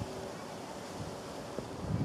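Steady low rumbling outdoor noise, typical of light wind on the microphone.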